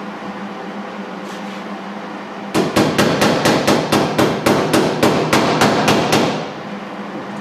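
A hammer striking sheet metal about fifteen times in quick, even succession, roughly four blows a second, over a steady hum.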